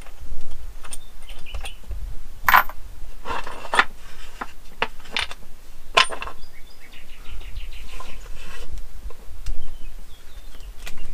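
Parts of a home-made wooden plant press being handled and fitted together: a dozen or so separate clinks and knocks at irregular intervals as the wooden boards meet the long metal screws and nuts.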